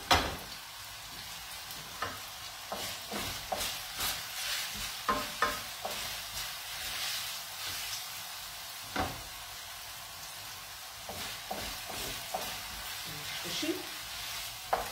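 Spaghetti in tomato sauce sizzling steadily in an aluminium frying pan over a gas flame, with scattered scrapes and knocks of a utensil against the pan as the pasta is stirred and turned. This is the toasting stage of spaghetti all'assassina, where the pasta is left to brown and crisp a little in the pan.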